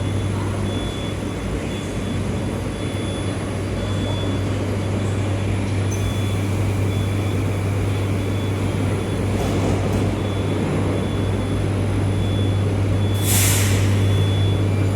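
Metro train at a station platform: a steady low hum, with a short burst of hissing air about 13 seconds in, like an air brake release.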